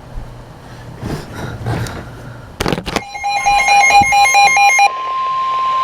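NOAA Weather Radio Emergency Alert System signal announcing a new warning: a short loud crackle, then about two seconds of a warbling electronic tone pattern, then at about five seconds in the steady 1050 Hz warning alarm tone begins.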